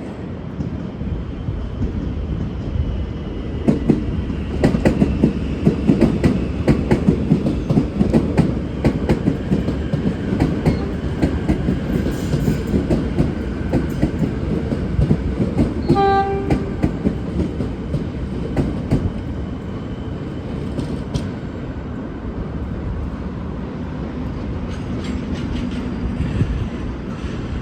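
Siemens Nexas electric suburban train departing, its wheels clicking rapidly over rail joints and points as it rolls past. The train's low-note horn gives one short blast a little past halfway through.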